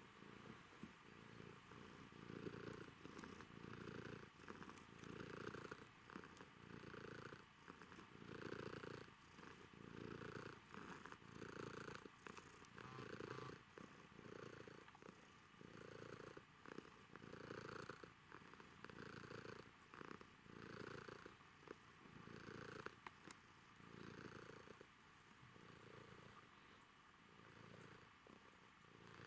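Domestic cat purring contentedly while being stroked and scratched under the chin. The faint, low purr pulses a little more than once a second and grows softer near the end.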